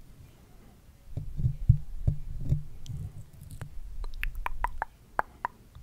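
Close-miked ASMR mouth sounds and microphone handling: soft low thumps and rubbing in the first half, then a quick run of sharp wet clicks.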